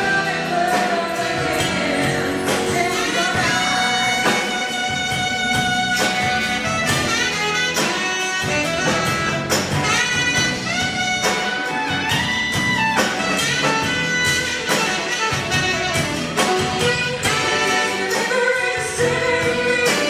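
Live jazz band music: a woman singing a song with the band, backed by a saxophone section.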